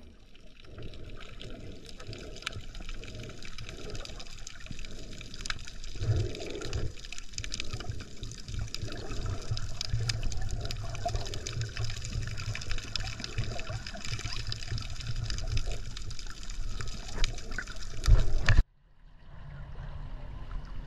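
Water heard from underwater: muffled sloshing and bubbling, with many fine clicks and a few low thumps, the loudest near the end. It cuts off suddenly near the end, and quieter water lapping at the surface follows.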